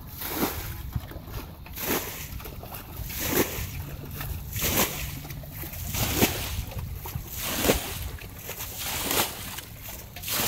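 Muddy water being bailed from a pit with a metal bucket: a splash of thrown water about every second and a half, in a steady rhythm.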